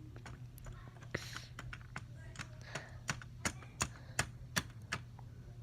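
A series of sharp, light clicks and taps over a low steady hum: a few scattered ones, then six louder ones about three a second in the second half.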